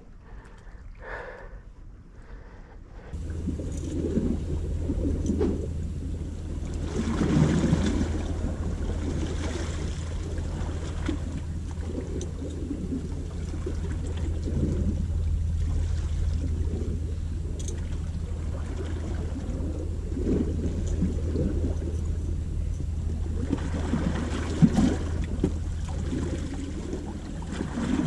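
Wind and sea noise on the microphone: a steady low rumble that comes in abruptly about three seconds in, with water washing and louder surges around eight and twenty-five seconds.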